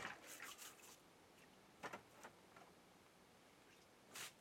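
Mostly near silence as dishes are washed in a metal basin: faint scrubbing in the first second, two light clicks about two seconds in, and a short scrape near the end as a small metal bowl is picked up.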